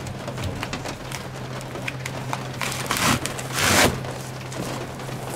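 Sheet of foil-faced EZ-Cool foam insulation crinkling and rustling as it is handled, with many small crackles and two louder rustles a little past the middle.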